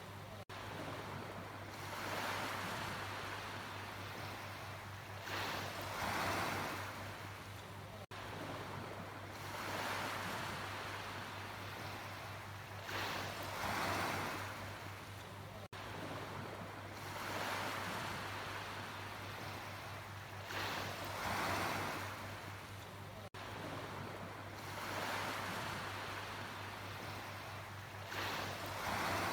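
Sea waves washing in, the surf swelling and falling back every few seconds, over a steady low hum.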